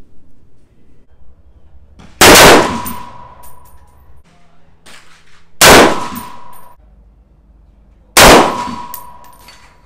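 Three rifle shots from an FN SCAR fired off a rest, about three seconds apart, each followed by a ringing tone that fades over a second or so.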